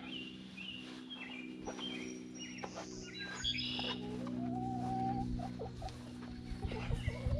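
Chickens clucking among other birds' short chirps, over a steady low hum.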